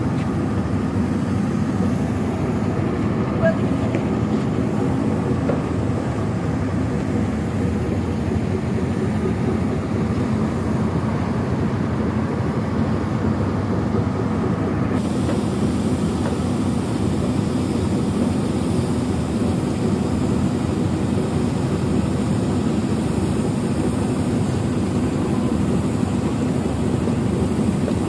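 A boat's engine running steadily: an even, unbroken drone with no change in pace.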